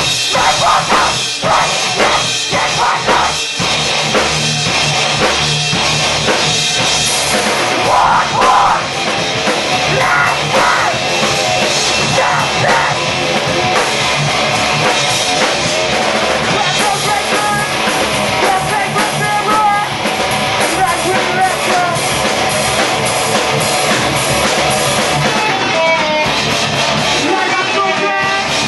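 A live rock band playing a loud song with a full drum kit, the drums hitting hard and evenly in the first few seconds.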